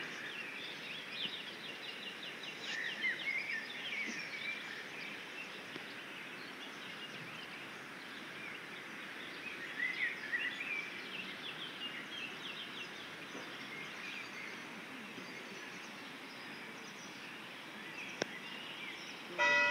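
Birds chirping and trilling over a steady outdoor background hiss, with bursts of calls in the first few seconds and again about ten seconds in. A short, louder pitched sound right at the very end.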